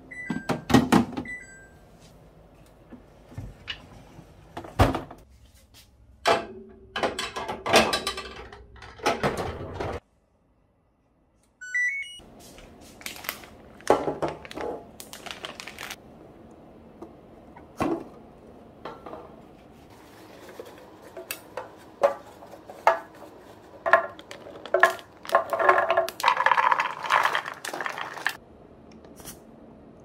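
Hard plastic food storage containers knocked, slid and set down, with lid clicks. About 25 seconds in comes a denser clatter, which fits peeled garlic cloves being poured into a plastic container.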